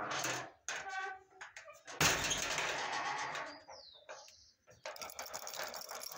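Crafting sounds: crepe paper rustling loudly for about a second, then a glue brush scratching rapidly over paper and cardboard from about five seconds in. A few short high-pitched calls come in the first second and a half.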